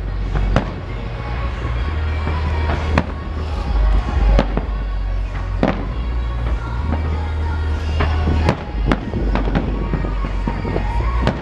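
Aerial fireworks shells bursting: about eight sharp booms at irregular gaps of one to two and a half seconds, over a continuous low rumble.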